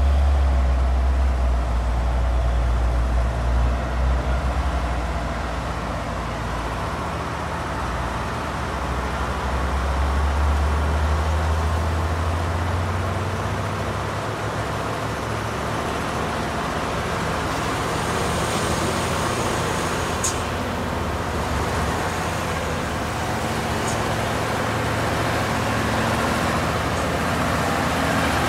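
Heavy truck's diesel engine running loud and low for the first dozen seconds, then fading into steady road traffic noise, with a brief sharp click about twenty seconds in.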